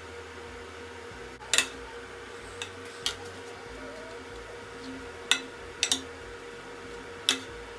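Kitchenware clinking and clacking: about seven sharp, separate knocks of dishes and utensils being handled, two in quick succession near the middle, over a steady low hum.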